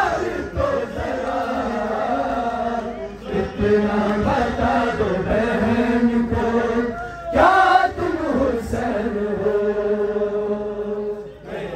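Male voices chanting a noha, a Shia mourning lament, in long held notes, phrase after phrase, with a fresh loud phrase starting about seven seconds in.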